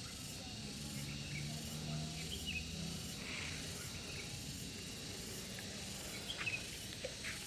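Outdoor background noise: a steady hiss with a low hum underneath and a few faint, short, high chirps.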